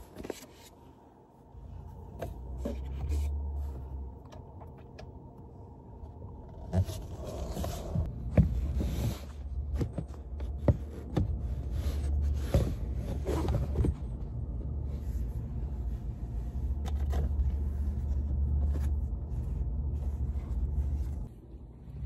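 Low rumble inside a car cabin, with scattered knocks, clicks and scraping handling noises.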